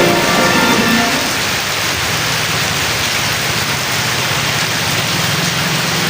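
Heavy rain falling steadily, a dense even hiss of rain on hard surfaces and water. Background music tails off in the first second.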